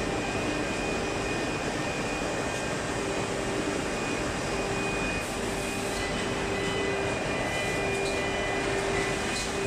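Adult diaper production line and automatic bagger running: a steady mechanical whir of factory machinery, with a low hum that drops in and out every second or two and a thin high whine above it.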